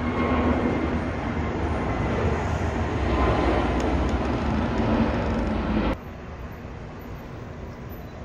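Airbus A320-family airliner's twin jet engines at takeoff thrust during climb-out: a loud, steady noise with a deep rumble. It cuts off suddenly about six seconds in, leaving quieter background noise.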